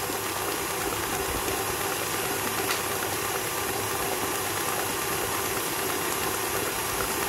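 KitchenAid Artisan stand mixer running at a steady speed, its beater whipping French buttercream toward a fluffy white stage: an even motor hum with hiss.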